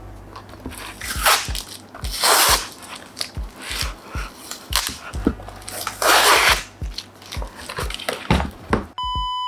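Packaging on a flat-packed monitor stand's box being torn and rustled by hand, in several loud scratchy bursts, over background music with a steady beat. A short electronic beep near the end.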